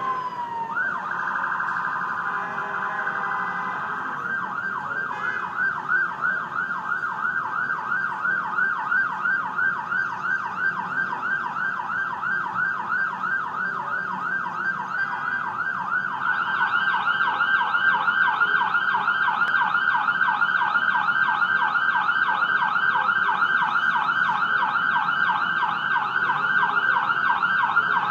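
Ambulance siren: a long wail glides down, then from about a second in it switches to a fast yelp, rising and falling several times a second. About halfway through the yelp gets louder and brighter.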